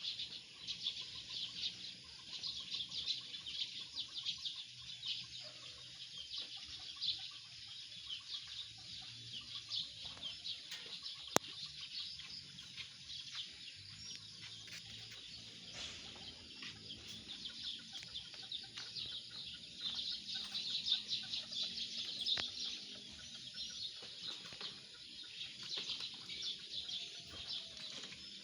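Many birds chirping busily and without a break, in louder and quieter stretches, with a single sharp click about eleven seconds in.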